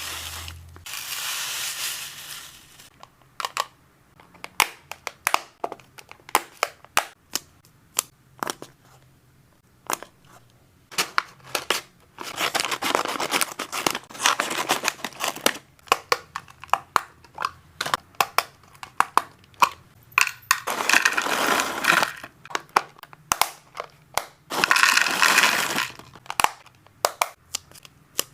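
Hamster snacks and their packaging being handled and sorted into storage: crinkling and rustling, with many sharp clicks and taps and several longer spells of rustling, about twelve, twenty and twenty-five seconds in.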